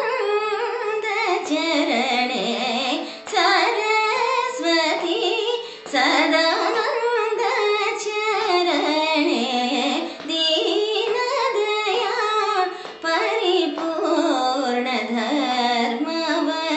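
A woman sings a Carnatic kriti in raga Dharmavati in winding, gliding phrases, with violin and mridangam accompaniment.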